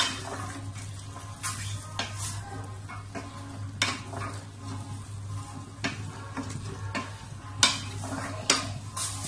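Wooden spatula stirring minced chicken and diced carrots in a stainless steel pot, scraping and now and then knocking sharply against the pot, over a light sizzle of the food frying.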